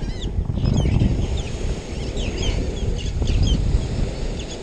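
Birds chirping in many short, quick calls over a loud, steady low rumble of wind and surf.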